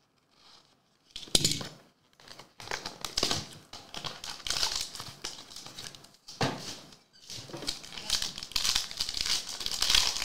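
Plastic shrink-wrap on a sealed trading-card box crinkling and tearing as it is cut open and stripped off by hand. The sound comes in uneven bursts, with a sharp one about a second in.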